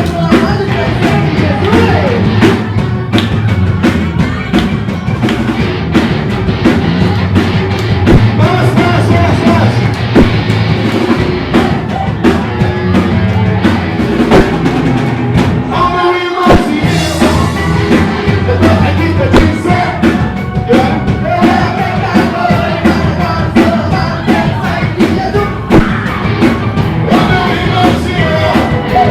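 Christian rock band playing a song with drum kit, electric guitars, bass and keyboard, with sung vocals. The bass and drums drop out for a brief break about sixteen seconds in, then the full band comes back.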